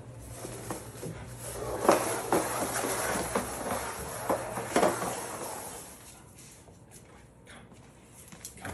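A plastic crate with a cat in it being dragged by a dog across a tile floor: a scraping, rattling slide for about four seconds, starting about a second and a half in, with a few sharp knocks.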